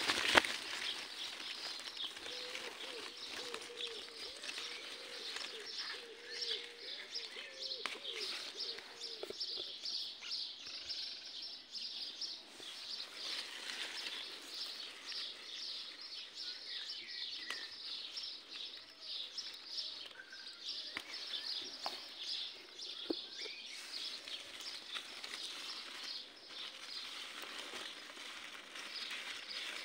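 Small birds chirping rapidly and continuously in high, quick notes. A dove coos in a low, wavering call for several seconds near the start.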